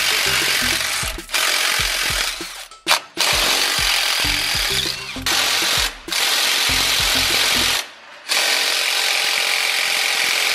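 Milwaukee cordless impact wrench hammering on driveshaft flange bolts, run in several bursts of a few seconds with short pauses between them.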